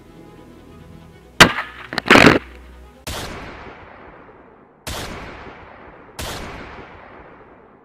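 A run of gunshot and bullet-impact sound effects: a sharp crack and a louder, longer burst about a second apart, then three single shots, each fading out in a long echo, about a second and a half apart. Faint music plays before the first crack.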